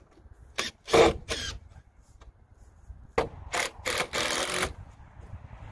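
Cordless drill driving screws into wood in short bursts: three quick runs about a second in, then four more from about three seconds.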